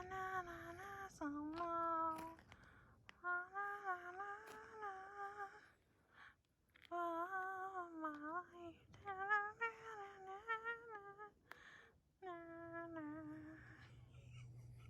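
A person humming a mock-dramatic tune with their voice, in four phrases of held, wavering notes with short pauses between them.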